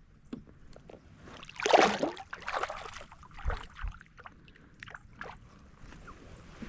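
Water splashing and sloshing beside a kayak, loudest about a second and a half in, with smaller splashes after and a few light knocks and clicks.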